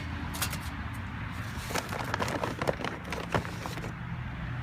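Charcoal briquettes clinking and knocking as they are dropped into a metal chimney starter, a scatter of short irregular clicks over a steady low hum.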